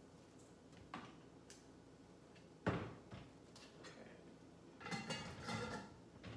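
Containers handled on a kitchen countertop: a light click, a sharp knock of something set down about halfway through, then a short rustling rattle near the end.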